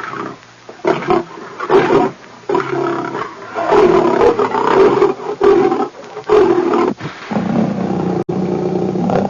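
Leopard roaring and growling in a string of loud calls, each about half a second to a second long. It settles into a longer, lower continuous growl for the last two seconds.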